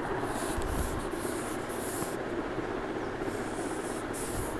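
Steady background hiss with a few soft, brief rustling or rubbing sounds.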